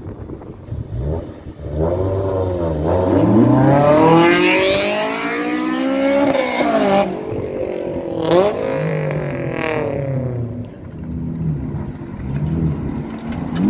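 A sports car's engine revved hard as it accelerates away, its pitch climbing several times and dropping back in between. Near the end, a Lamborghini Aventador's V12 runs at a lower, steadier note as it rolls up.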